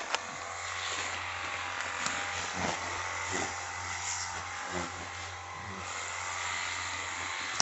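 XTD cordless pressure washer running steadily, its motor humming under the hiss of the water spray, and cutting off suddenly near the end.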